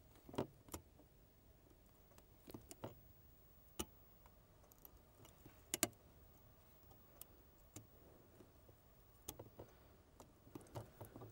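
Faint, irregular clicks and taps of a small metal tool picking at a ZX Spectrum's keyboard membrane connector, working loose a wedged scrap of membrane, with a small cluster of clicks near the end; otherwise near silence.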